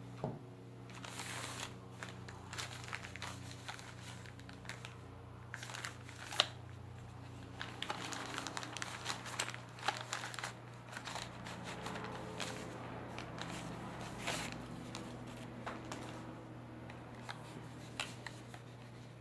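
Packaging being handled and unwrapped: plastic crinkling and rustling with scattered clicks and taps, one sharp click about six seconds in, over a steady low hum.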